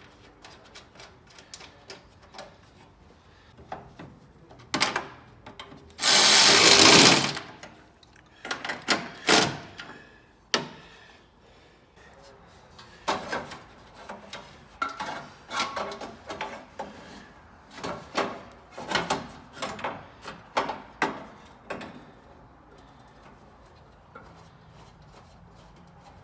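Tools clinking and knocking against metal engine parts in scattered short strokes, with one loud rushing burst about a second long some six seconds in.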